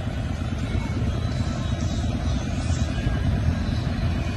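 Vintage farm tractor engines running as several old tractors drive slowly past, a steady low engine noise without a clear rhythm.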